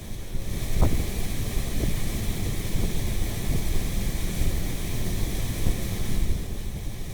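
Renault Sandero heater blower fan, out of the car and powered on its connector, running with a steady rushing of air, with a light knock about a second in. Out of its housing it runs without the rustle it made installed, a sign that debris caught in the housing made the noise rather than a failing motor.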